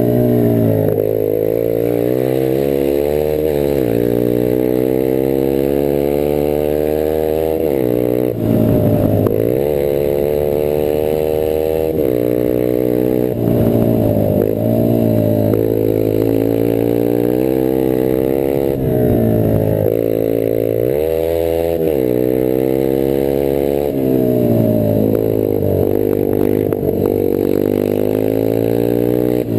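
Rieju Marathon 125 AC's air-cooled 125 cc engine running through an open exhaust with no silencer while riding a gravel track. The revs repeatedly climb and then drop sharply as the rider shifts gears and rolls off the throttle.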